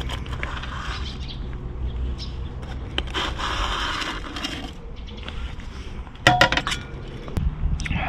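Cutlery and cookware scraping and clinking against a steel camping pan and plate as food is served, with a quick cluster of sharp metal clinks a little after six seconds in, the loudest sounds here.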